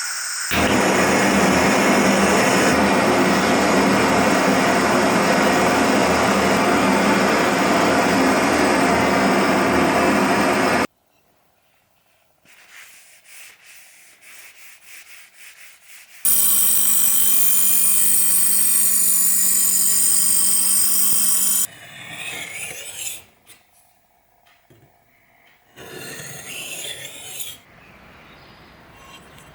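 An electric power tool runs under load, abrading metal or wood, in two long runs: about ten seconds, then, after a pause with faint scratching, about five seconds. Short irregular rubbing and scraping follows.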